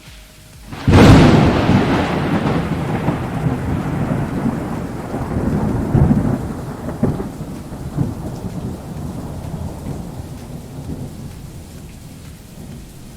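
Thunderclap sound effect: a sudden loud crack about a second in, then a long rolling rumble with a few swells that slowly fades away.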